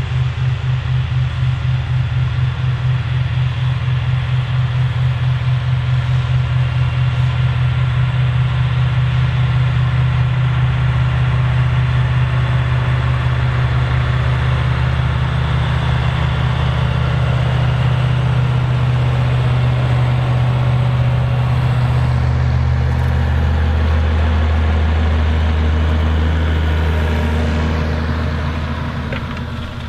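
Large articulated farm tractor's diesel engine running steadily at work. Its note drops lower about three-quarters of the way through.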